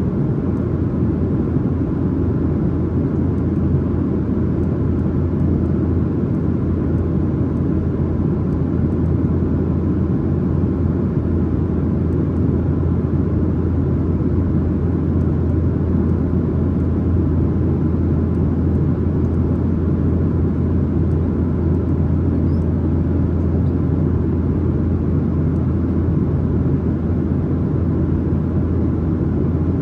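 Steady in-flight cabin noise of a Boeing 737-900ER heard from the main cabin: an even drone of the CFM56-7B turbofan engines and airflow, with a strong low hum underneath.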